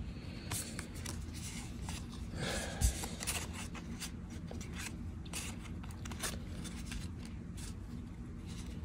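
Magic: The Gathering cards being slid off a handheld stack one at a time, with soft ticks and rustles as the cards rub past one another. One low knock sounds about three seconds in.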